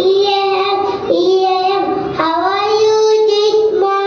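A young girl singing solo into a microphone, holding long, steady notes with short breaks for breath.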